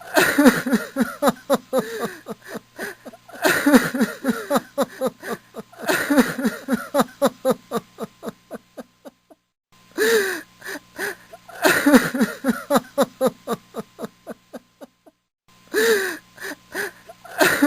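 A man crying: bouts that each open with a wailing cry falling in pitch, then break into quick, rhythmic sobbing gasps at about four or five a second, repeated several times with short pauses between.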